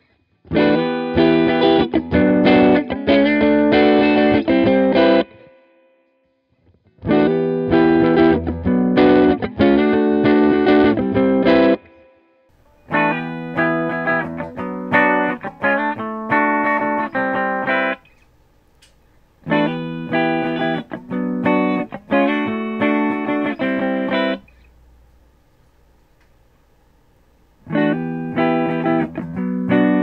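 Harley Benton SC-200 humbucker electric guitar strumming chord phrases in passages a few seconds long, with short pauses between them. At first it runs through GarageBand's 'Brit & Clean' amp model and sounds slightly overdriven rather than truly clean. About twelve seconds in, the same chords come through a Line 6 75-watt amp recorded with a microphone beside it, sounding clean, with a faint low hum in the pauses.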